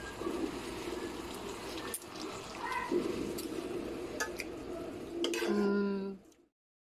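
A spatula stirring water spinach and pork in a pan of simmering sauce, with scattered clicks and scrapes of the utensil against the pan over a steady bubbling hiss. A short steady tone sounds just before the sound cuts off about six seconds in.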